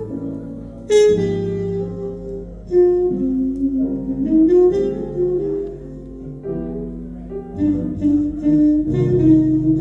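Music from a vinyl record playing through a hi-fi system with horn loudspeakers: a melodic lead holds long notes over a bass line, with new phrases entering every few seconds.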